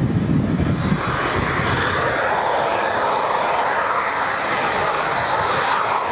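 A Eurofighter Typhoon's twin EJ200 turbofan engines, loud and steady as the jet banks overhead. A deep rumble in the first second gives way to a steady rushing jet noise.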